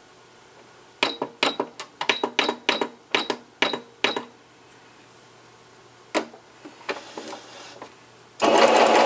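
Electronic stitch-selector buttons on a Singer Brilliance 6180 sewing machine pressed about ten times in quick succession, each press giving a short beep, as a straight stitch is selected. A single click follows, and near the end the machine starts sewing, its motor and needle running loud and steady.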